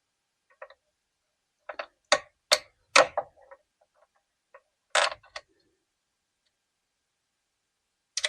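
Hard plastic clicks and snaps from a small plastic retaining clip being worked by hand to release it: a run of several sharp clicks about two to three seconds in, another pair about five seconds in, and single clicks near the start and end.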